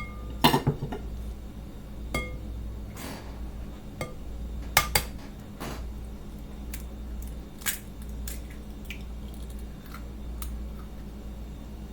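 Eggs being cracked on the rim of a bowl: sharp taps and clinks of shell on dish a second or more apart, one with a short ringing tone.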